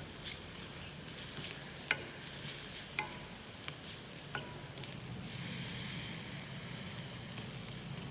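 Minced onion sizzling in hot olive oil in a pan, being sautéed until golden. A utensil stirring it scrapes and taps the pan in a few sharp clicks during the first half.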